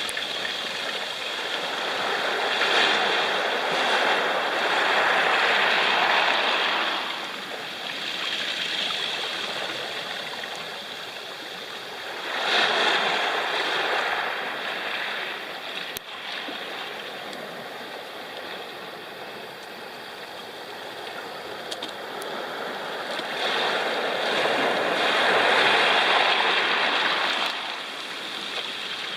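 Sea waves washing up a pebble beach: three surges about ten seconds apart, each swelling for a few seconds and falling back to a steady wash between them.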